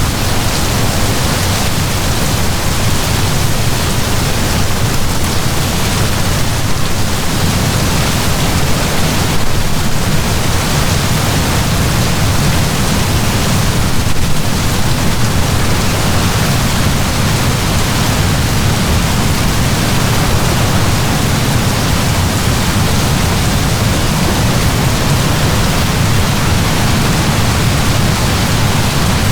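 Heavy rain falling in a steady downpour, a constant dense hiss with a low rumble underneath.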